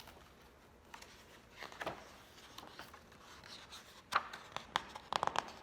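Faint handling noises: soft rustling and a few light taps and clicks, with a sharper tap about four seconds in and a quick cluster of clicks about a second later.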